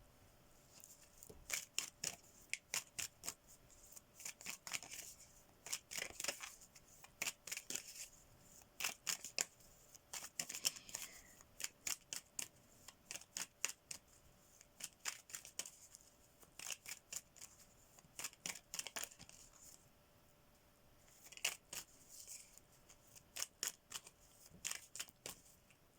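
A tarot deck being shuffled by hand: a long run of sharp, irregular card snaps and slaps in clusters, with short lulls.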